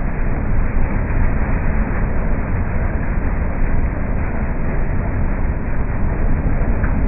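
Corn elevator running steadily, its chain and metal flights clattering as ear corn rides up the trough, with the engine that drives it through a shaft running under it.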